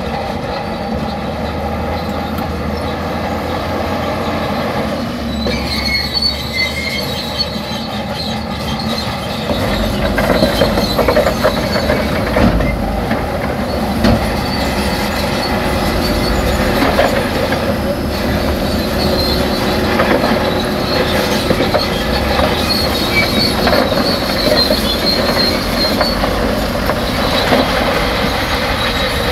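Heavy diesel earthmoving machinery working: a low, steady engine rumble with high-pitched metallic squealing on top, getting louder about ten seconds in.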